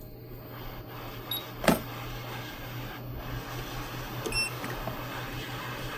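Hot air rework station blowing steadily on a phone's charging port to melt its solder, with a low hum. There is a sharp click about a second and a half in and a brief high beep a little past the middle.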